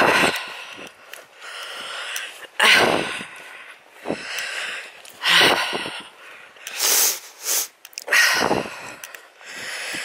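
Heavy breathing of a person walking uphill, with a loud breath about every two and a half to three seconds and fainter breaths in between.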